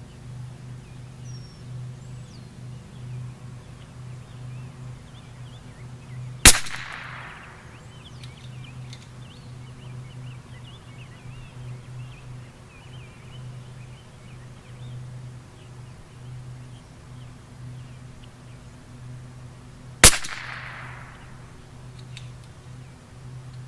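Two shots from a Bergara B14R .22 LR rimfire rifle firing Norma Match 22 ammunition, about thirteen seconds apart, each a sharp crack with a short ringing tail.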